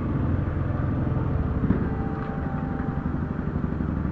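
Motorcycle engines running at low revs with a rapid, low pulsing beat, as the bikes roll slowly.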